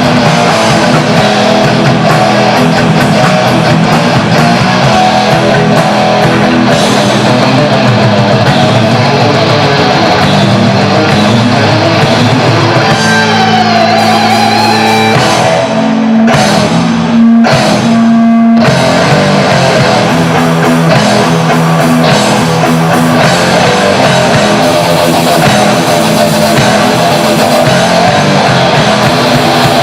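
Heavy metal band playing live: distorted electric guitars over a drum kit in an instrumental passage. About halfway through, the drums and cymbals drop out for a couple of seconds while guitar chords are held, then the full band comes back in.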